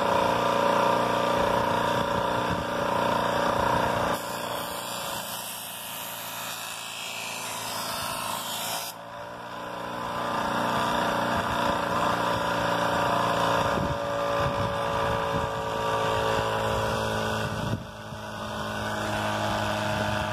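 Bench grinder's electric motor running with a steady hum. The sound shifts abruptly a few times, with more hiss from about four to nine seconds in.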